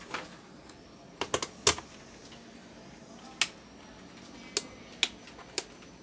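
Sharp clicks of buttons being pressed on the Dowell IC-28 induction cooker's control panel: a quick cluster about a second in, then single presses every second or so. The cooker does not respond; it has no power.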